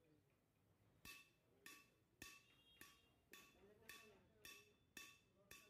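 Steady hammer blows on a steel pipe, about two a second, beginning about a second in, each with a short metallic ring.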